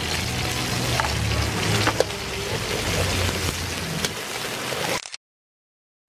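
Hot oil sizzling in a wok as chicken pieces and then a poured egg fry in it, over a low rumble, with a few sharp clicks. The sound cuts off abruptly about a second before the end.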